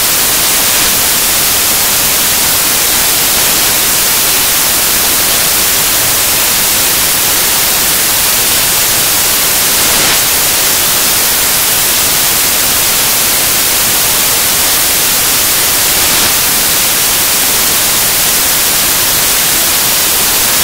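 Loud, steady hiss of static or white noise, brightest in the highs and unchanging throughout.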